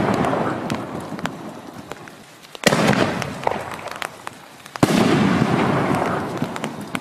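5-inch canister aerial shells: a burst's echoing rumble fades, then a sharp boom about two and a half seconds in as the next shell lifts from its mortar tube, and a second boom about two seconds later as it bursts overhead, rumbling and echoing, with scattered sharp pops.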